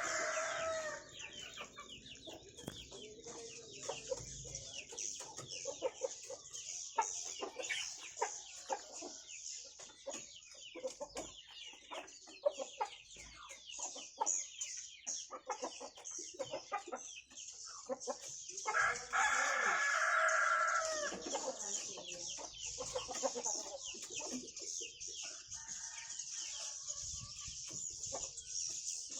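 A swiftlet colony twittering in a dense, continuous stream of high, rapid chirps. A rooster crows loudly about 19 seconds in; another crow is trailing off at the very start, and a fainter one comes near the end.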